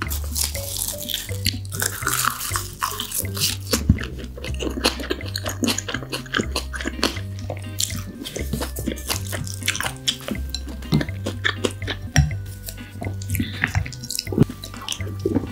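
Close-miked wet eating sounds of marinated raw crab (gejang) with rice: sticky chewing and smacking with many quick clicks. Low bass notes of background music run underneath.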